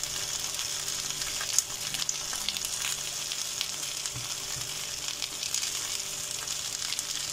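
Chicken quarters sizzling in a hot grill pan as melted butter is brushed over them: a steady frying hiss with scattered small pops and crackles.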